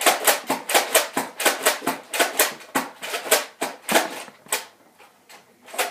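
Nerf blaster fired in rapid succession: a fast run of sharp clicks and knocks, about five a second, that thins out about four and a half seconds in.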